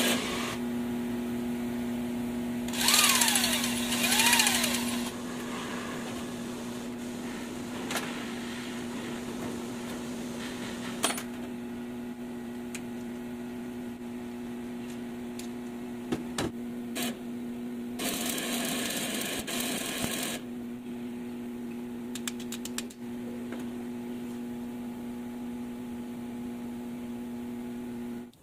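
A steady electric hum, with two louder bursts of power-tool noise: one about three seconds in, with a brief whine, and one about eighteen seconds in, plus a few scattered clicks.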